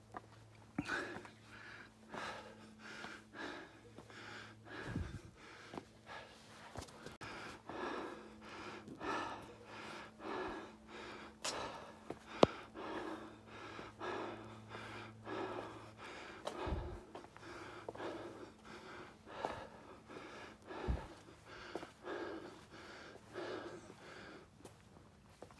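A person breathing hard and rhythmically while climbing on foot, about one breath a second, with occasional footfalls. A faint steady hum runs underneath and stops about two-thirds of the way through, and a single sharp click comes near the middle.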